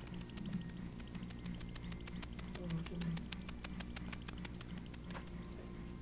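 Cockatiel chick begging as an adult cockatiel feeds it: a rapid, even chittering of short high clicks, about eight a second, that stops shortly before the end.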